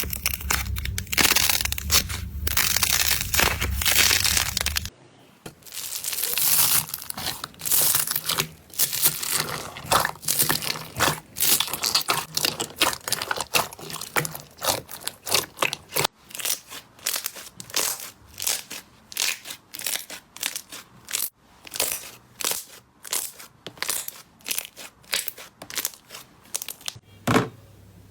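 Slime being squeezed and poked, crackling and crunching densely, then, from a little past halfway, a run of sharp separate clicks and pops, about two or three a second.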